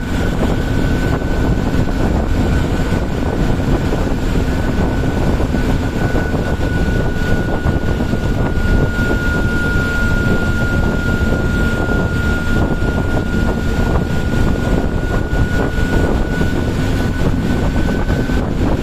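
Turbocharger whistle from a KSRTC bus's diesel engine under way: a steady high whine that sags slightly in pitch midway and rises again near the end, over loud engine and road rumble.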